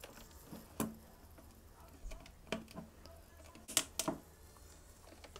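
Plastic deli cup being handled and its snap-on lid pried off: a few sharp plastic clicks and taps, the loudest two close together a little under four seconds in.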